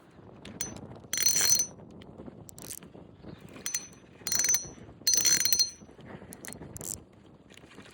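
Fishing reel drag buzzing in three short runs, with a high whine, as a hooked fish takes line. Fainter ticks of the reel come between the runs.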